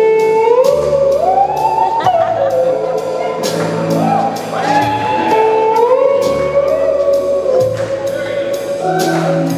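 Electric slide guitar solo on a Gibson SG, the lead line gliding smoothly up from note to note, over a live rock band with bass guitar and a steady drum and cymbal beat.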